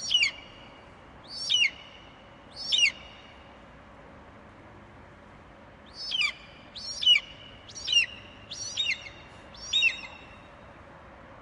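A bird calling in two series of short, sharp whistled notes, each dropping steeply in pitch: three notes, a pause of about three seconds, then five more about a second apart, over a faint steady hiss.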